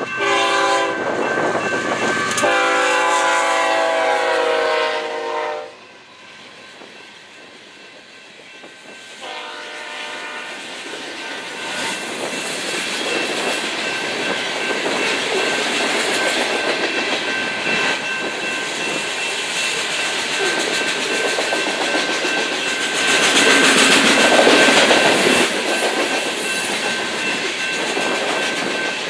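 Lead diesel locomotive's air horn sounds one long blast and then a shorter one a few seconds later as the train nears the crossing. Then the train's ballast hopper cars roll past with steady wheel-on-rail clatter, loudest about three-quarters of the way through, over a faint steady high tone.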